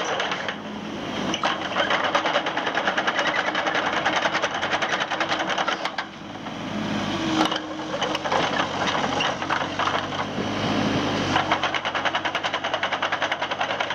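Kubota RX-306E mini excavator's diesel engine running with a fast, even clatter. Its note dips and picks up again twice as the machine is tracked and its boom worked.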